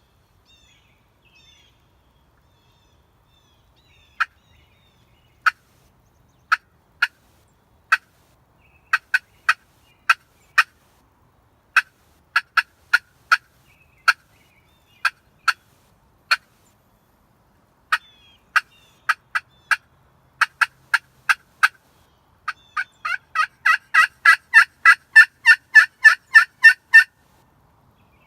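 Turkey calls: single, sharp clucks spaced about a second apart, then a fast, quickening run of yelps that grows louder and stops suddenly near the end.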